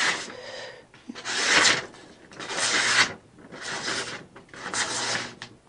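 A freshly sharpened tomahawk blade slicing through a sheet of paper, four rasping cuts about a second apart, showing a shaving-sharp edge.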